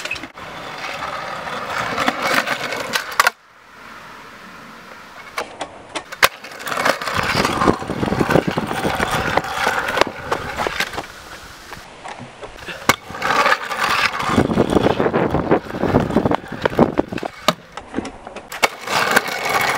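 Freestyle scooter wheels rolling on concrete, with many sharp clacks and knocks as the deck and wheels hit, grind and land on ledges and ramps; the level drops abruptly a little over three seconds in where one take is cut to the next.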